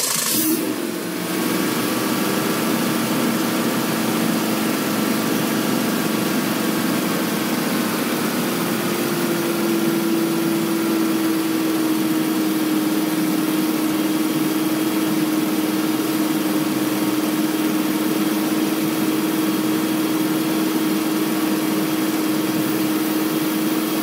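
Car engine idling steadily with its rebuilt distributor freshly re-timed; its pitch eases slightly lower over the first several seconds, then holds steady.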